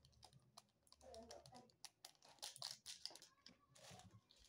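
Faint crinkling and tearing of small plastic sachets and wrappers being opened by hand, with scattered light clicks.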